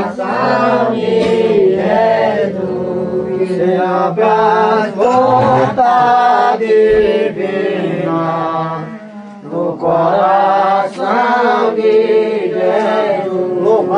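Penitents' voices chanting a slow religious hymn in long, held phrases, with a short dip about nine seconds in.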